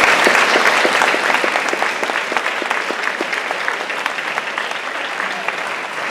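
Audience applauding, loudest at first and slowly dying down.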